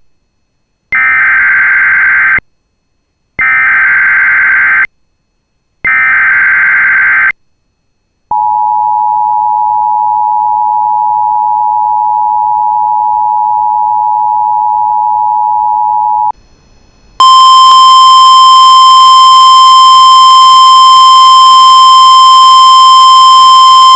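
Emergency Alert System tones: three short warbling SAME header data bursts, then the steady two-tone EAS attention signal for about eight seconds. After a brief gap comes a single loud steady alert tone near 1 kHz with overtones, the NOAA Weather Radio 1050 Hz warning tone.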